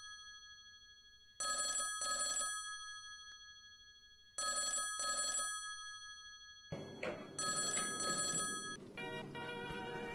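Telephone ringing in a double-ring pattern, two short rings per burst, three times about three seconds apart. A burst of noise comes in under the third ring, and music starts near the end.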